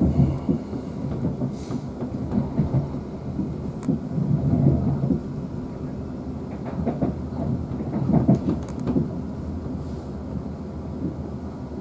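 Interior running noise of a South Western Railway Class 450 Desiro electric multiple unit at speed: a low rumble of wheels on rail that rises and falls unevenly, with a few faint clicks.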